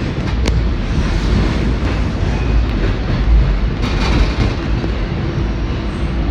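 Toronto subway train running through a tunnel, heard from inside the car: a loud, steady rumble of wheels on the rails. Sharp clicks come about half a second in and again around four seconds in.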